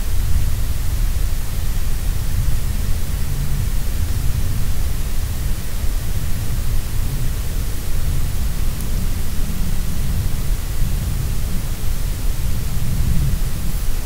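Steady background noise of an overnight forest recording: a low, fluctuating rumble under an even hiss, with no distinct knocks or calls.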